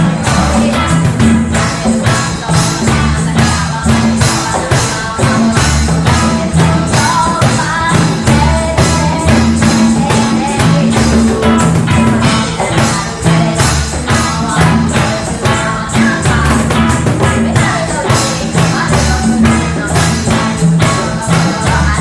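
A live band playing a song with singing, a bass line and a steady beat of percussion strokes.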